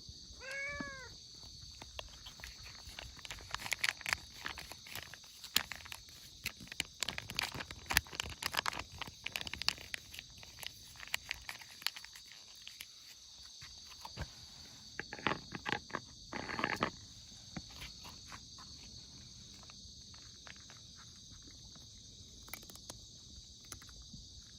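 A cat gives one short meow that rises and falls, then cats crunch dry cat food, with bursts of quick clicking chews. A steady high insect drone runs underneath.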